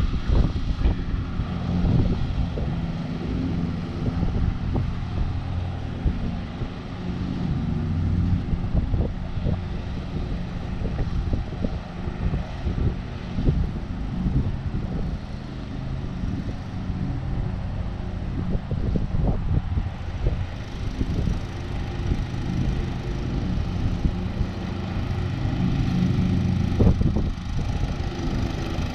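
John Deere LX176 riding lawn mower engine running steadily at a distance while mowing, getting a little louder near the end as it comes closer.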